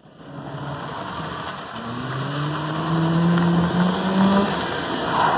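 Nissan Micra approaching and driving past close by, its engine note rising as it pulls along the street over steady tyre and road noise, then dropping away about four and a half seconds in as it slows.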